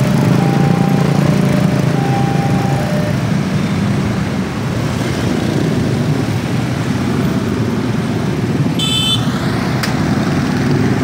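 Many motorcycle engines idling and revving as a crowd of riders pulls away across a railway level crossing. The crossing's two-tone warning alarm keeps alternating for the first three seconds or so, then stops.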